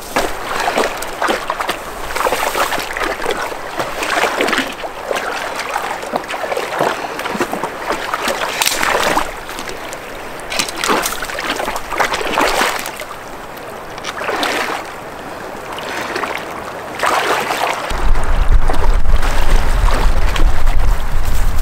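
Wading through a shallow creek: water sloshing and splashing in surges every second or two as legs push through the current, over the steady rush of the stream. A low rumble comes in near the end.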